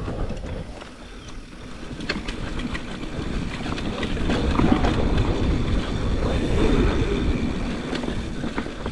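Mountain bike riding over the trail: tyre rumble and rattle with noise on the microphone, with scattered clicks, building in level after the first couple of seconds.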